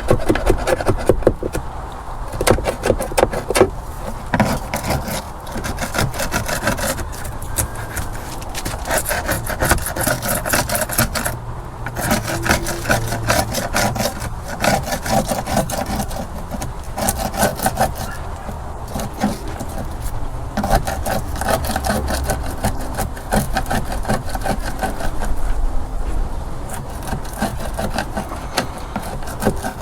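Flathead screwdriver scraping flaking paint off a bass boat, in rapid repeated rasping strokes.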